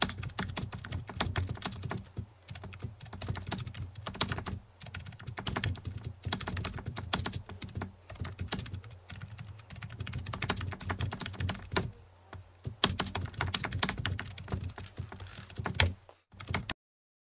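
Fast, irregular typing clicks of a keyboard over a low steady hum, stopping abruptly near the end.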